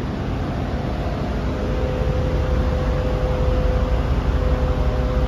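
Steady rushing noise with a low rumble, joined about two seconds in by a thin steady hum.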